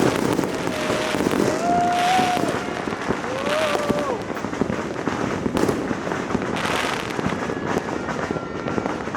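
Dense fireworks and firecrackers going off continuously all around, a steady mass of crackles and bangs with many going off at once. A few short wavering tones sound over them between about one and four seconds in.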